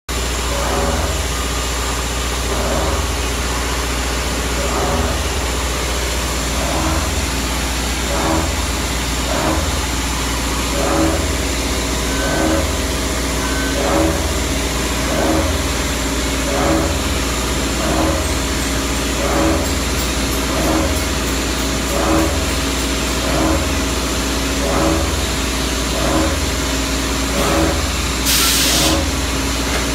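Industrial machinery running with a steady low hum and a repeating pulse roughly every one and a half seconds. A short hiss comes near the end.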